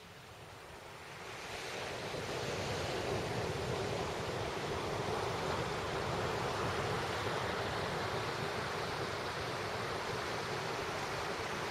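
Ocean surf breaking on a sandy beach: a steady wash of noise that swells in over the first couple of seconds and then holds.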